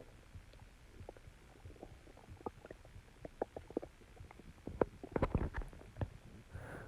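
Stomach growling: irregular soft gurgles and pops, bunched most thickly about five seconds in.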